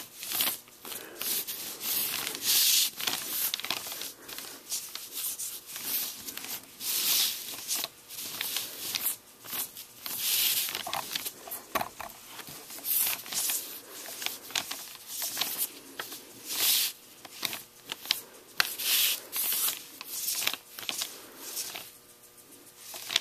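A wool pad rubbed back and forth along a dyed leather strap, applying a liquid finish: a run of short scratchy rubbing strokes, one or two a second, that dies away near the end.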